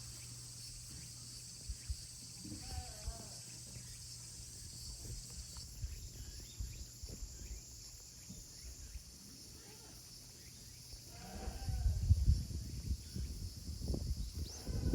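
Goats bleating: two short, falling calls, one a few seconds in and one near the end, over a steady high hiss. From near the end there is a run of loud, irregular low thumps and rustling.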